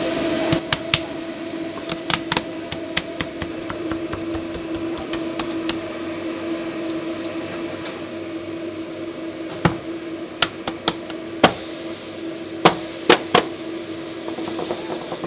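Sharp metal knocks and clanks as an aluminium cake-pan mould is tapped and lifted off a raw beef patty on a steel flat-top griddle, with a metal spatula working under the pan. The knocks come in a cluster in the second half, over a steady low hum.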